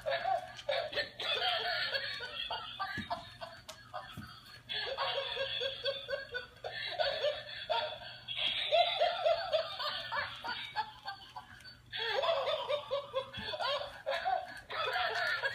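Battery-powered laughing plush toy giggling through its small speaker, its electronic laugh coming in repeated spells with short pauses between them.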